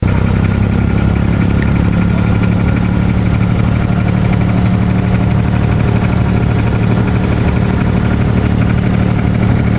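Boat's engine running steadily, an even low drone that holds one pitch throughout.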